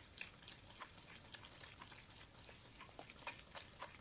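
Thickening slime being stirred with a spoon in a plastic bowl: faint, irregular sticky smacks and ticks, several a second.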